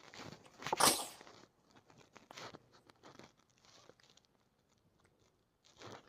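A single sharp sneeze about a second in, with crackling, rustling noises around it.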